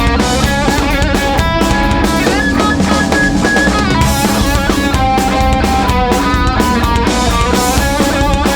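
Live punk rock band playing an instrumental passage: distorted electric guitars, bass and a pounding drum kit with snare and bass drum.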